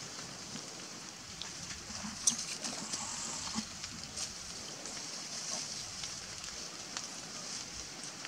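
Macaques moving about on dry leaves and dirt: scattered light crackles and ticks over a steady high hiss, with one sharp click about two seconds in.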